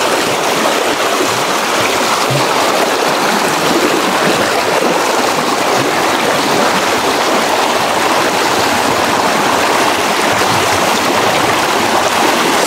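A river's strong current rushing, a steady, loud wash of water noise.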